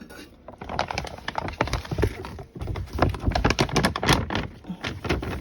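Dense, irregular knocking and scraping of a utensil against a container while baking soda powder is scooped and mixed.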